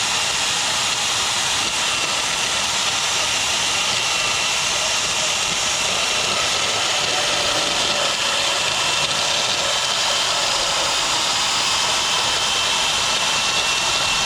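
Handheld electric grinder running steadily at full speed on metal, a constant high whine over a harsh rushing noise, grinding paint off bare metal so a ground connection can be made; it winds down at the very end.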